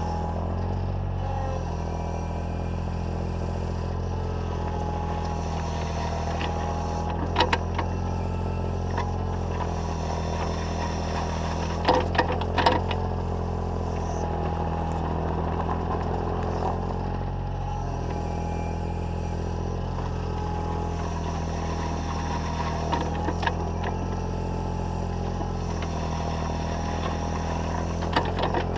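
Takeuchi TB014 mini excavator's engine running steadily as it works, with a few sharp clanks and scrapes of the bucket on gravel, the loudest about twelve seconds in.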